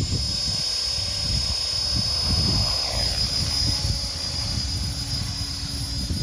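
Electric RC helicopter, a flybarless Align T-Rex 450 clone with its motor at full throttle, hovering close by. A constant high screech from the motor and transmission rides over the main rotor's low, uneven thumping.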